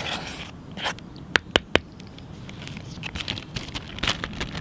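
A spoon stirring dry flour in a metal camping pot, scraping and rustling, then three sharp taps in quick succession about a second and a half in, the spoon knocking against the pot.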